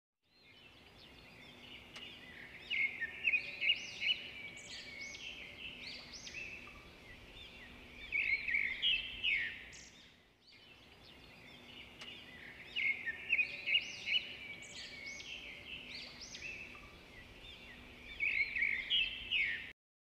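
Recorded birdsong, with clusters of chirps and warbling calls and a faint steady hum underneath. The same ten-second stretch plays twice in a row, so it is a looped recording.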